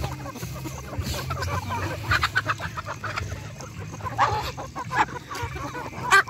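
Poultry clucking and calling at feeding time, a flock of Muscovy ducks and chickens crowding around hand-held corn. The short calls are scattered, with the loudest near the end.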